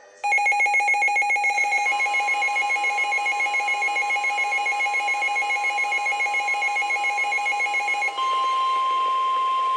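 Weather radio alert: a rapidly pulsing electronic alarm of several tones, with the steady 1050 Hz NOAA Weather Radio warning alarm tone coming in under it about two seconds in. After about eight seconds the pulsing alarm stops and the 1050 Hz tone carries on alone, the signal that a warning broadcast is about to follow.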